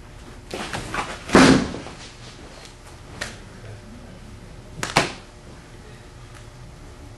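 A pitched baseball hits the backstop with a loud smack about a second and a half in, just after the scuffing thuds of the pitcher's stride on the dirt mound. A pair of sharp knocks follows near five seconds.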